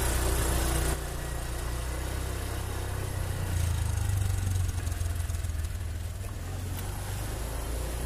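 Motorcycle engine running as the bike rides along, a steady low hum under a rushing noise, recorded from the pillion seat; the sound drops a little about a second in.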